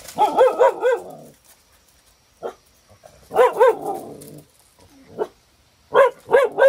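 Dog barking in short runs: about four quick barks at the start, a few single barks and a pair in the middle, and three quick barks near the end.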